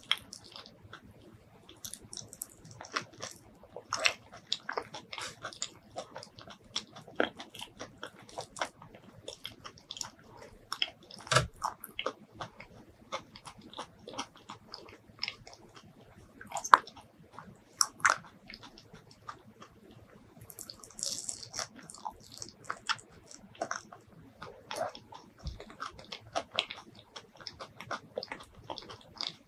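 Close-miked eating of mini Thai durian: wet mouth sounds of biting and chewing the soft flesh, made up of many irregular sharp clicks and smacks.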